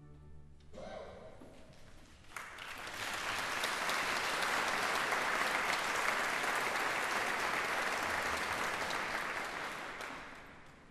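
The orchestra's final chord dies away in the first second. After a short lull, concert audience applause breaks out about two seconds in, holds steady and fades near the end.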